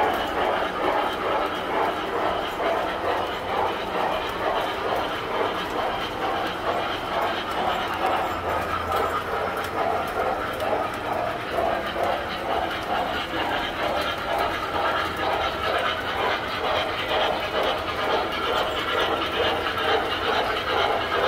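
Tinplate model electric train running on its track: a steady rolling clatter that pulses in a regular rhythm.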